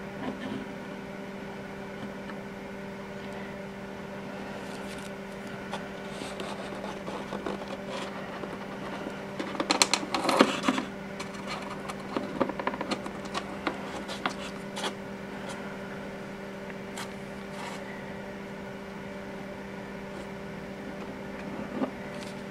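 A steady low hum, with scattered clicks and rustles as hands work a squeeze tube of silicone adhesive against the foam fuselage. A louder cluster of clicks comes about ten seconds in.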